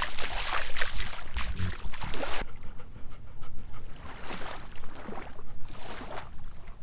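Footsteps splashing through shallow seawater for the first couple of seconds, then a dog panting.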